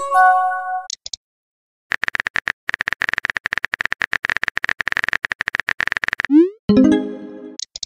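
Texting-app sound effects: a short electronic chime near the start, then a run of fast, even keyboard-typing clicks lasting about four seconds, a quick rising swoosh as the message is sent, and a second chime near the end.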